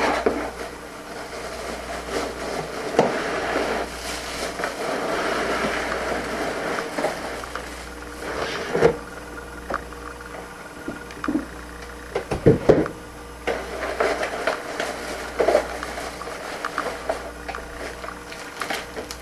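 Plastic bags and brown packing paper rustling and crinkling as parts are lifted out of a cardboard shipping box, with a few knocks from the box and parts, over a steady low hum.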